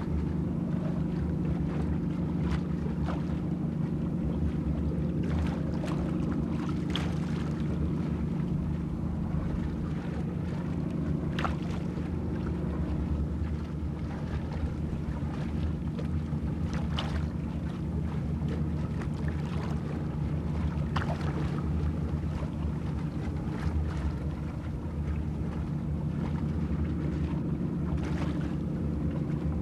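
Boat motor idling steadily, with scattered light clicks and knocks over it.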